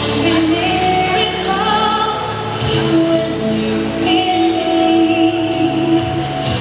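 Slow music with singing and long held notes, with a soft beat about once a second.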